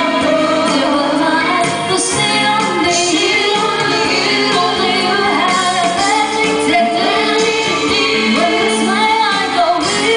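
Female vocal trio singing a song into microphones over instrumental backing music.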